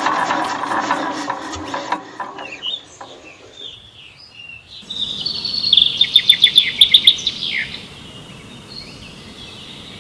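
Small model diesel-generator engine running with a rapid knocking beat, cutting out about two seconds in as its lever is pressed. Then birds chirp, with a loud rapid trill of about eight notes in the middle, and fainter chirping after.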